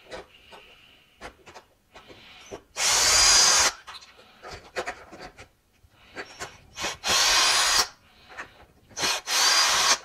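Drill on a long bit extension running in three short bursts, each under a second, backing screws out of the swivel neck of a Miele U1 upright vacuum. Small clicks of handling and the bit fall between the bursts.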